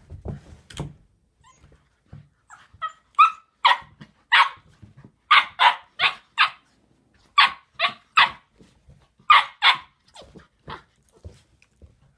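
A dog barking in short, sharp barks, about a dozen in groups of two or three, starting about three seconds in. A few low thumps and scuffles come before the barking.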